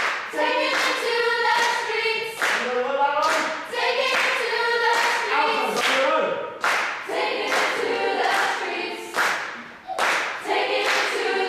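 Mixed choir of children and adults singing a rhythmic song a cappella, with a sharp, crisp accent on each beat, a bit more than once a second.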